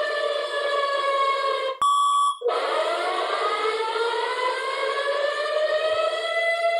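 Alternate-style Emergency Alert System alarm: a loud wailing siren tone with many harmonics. It falls in pitch, cuts off about two seconds in for a short steady beep, then rises slowly again and starts to fall near the end.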